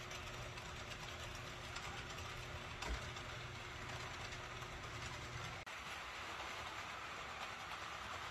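HO-scale ACME Class 371 model locomotive running on the layout track: a steady rolling hiss with a low motor hum. The hum cuts off abruptly about five and a half seconds in, leaving the steady running hiss.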